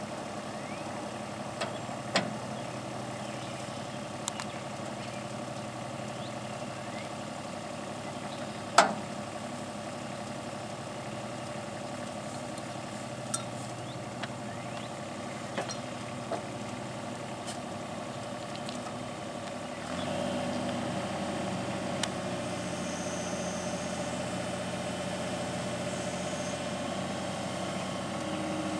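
Excavator engine running steadily, with a few sharp knocks, the loudest about nine seconds in. About twenty seconds in it steps up slightly in level and tone.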